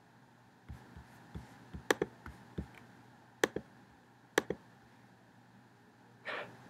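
Computer mouse clicks: three sharp double clicks, each a press and release, about a second apart, with lighter ticks and taps among them in the first few seconds. A brief soft rush of noise comes near the end.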